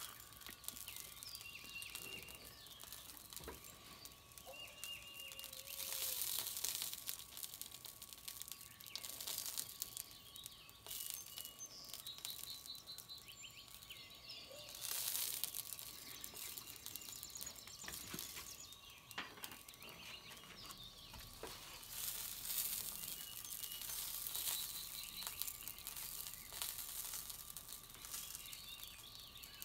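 Soft hissing and crinkling in stretches of a few seconds as barbecue sauce is squeezed from a bottle and brushed onto meat on a hot smoker grate. Birds chirp in the background throughout.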